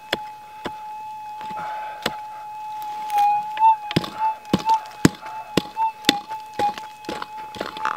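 A prospecting pick chopping into hard dirt, strike after strike, coming faster and louder in the second half. Under it a gold detector holds a steady threshold tone that warbles in pitch through the middle as the digging goes on.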